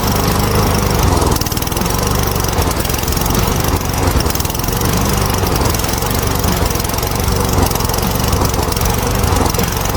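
Small lawn mower engine running steadily at a constant speed.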